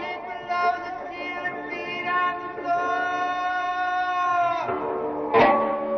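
Live late-1960s psychedelic band with flute and voice: a singer holds long notes over the flute. Near the end a single sharp struck sound cuts in and rings on.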